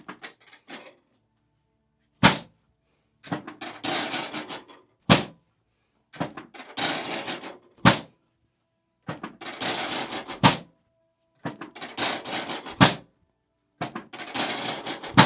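Chiropractic drop table's drop section snapping down as the sternum is adjusted. It gives a sharp thunk about every two and a half seconds, six in all, and each thunk is preceded by about a second of noise.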